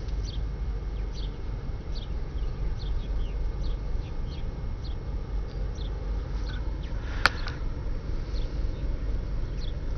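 Small birds chirping here and there over a steady low rumble, with one sharp click about seven seconds in.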